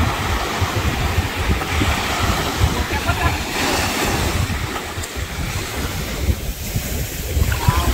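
Sea surf washing up the beach, with wind buffeting the microphone.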